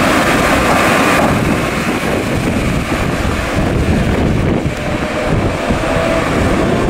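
Electric train passing close by and pulling away: the Siemens Vectron (Sr3) locomotive and double-deck coaches rumble steadily on the rails. A higher whine cuts off about a second in, and wind buffets the microphone.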